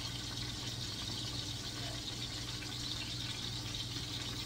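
Sausage links sizzling steadily in olive oil in a stainless steel frying pan on low-to-medium heat, with a low steady hum underneath.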